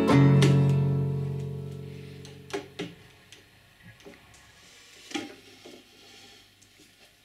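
Plucked-string background music ending on a held chord that fades out over the first two and a half seconds. Then a few sharp knocks and clicks from hand work at the kayak, with the loudest around the middle.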